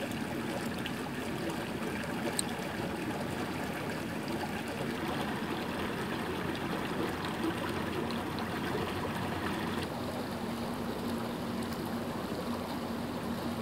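Small plaza fountain's water jets splashing and trickling into a shallow stone basin, a steady wash of water noise, thinning a little after about ten seconds. A faint low steady hum runs underneath.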